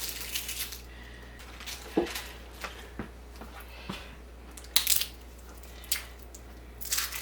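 Batteries being fitted into the battery compartment of a smart lock's interior assembly: scattered small plastic and metal clicks and handling noises, roughly one a second.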